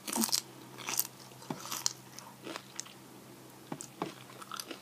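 Close-up eating sounds of a person biting and chewing crispy fried tortillas, with irregular sharp crunches roughly every second.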